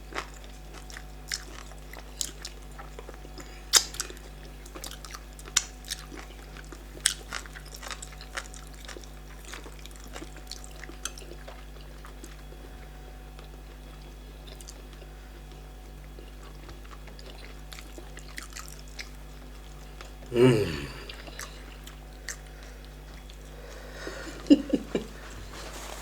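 Close-miked eating sounds: wet chewing clicks and lip smacks, irregular and frequent for the first half, then sparser. About twenty seconds in comes a short vocal sound falling in pitch, and a softer murmur follows near the end.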